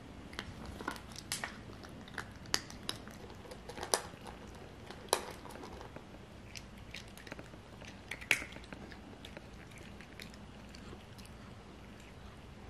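Cat crunching dry kibble: irregular crisp crunches, a few louder than the rest, thinning out over the last few seconds.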